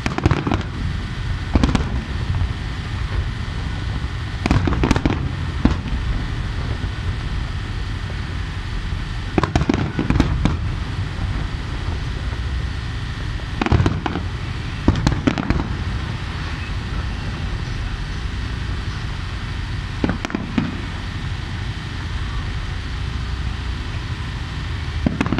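Aerial firework shells bursting in irregular clusters of sharp bangs, some single and some in quick runs, over a steady low rumble.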